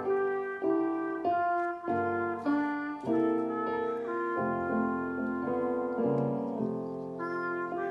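Instrumental piece: a solo melody instrument playing sustained notes over piano accompaniment, the notes changing every half second to a second.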